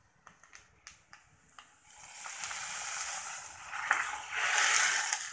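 Hot coconut-oil tempering of mustard seeds, shallots, dry red chillies and curry leaves poured into a coconut-milk prawn curry, sizzling as the oil hits the liquid. A few faint clicks come first; the sizzle starts about two seconds in, swells, and dies down near the end.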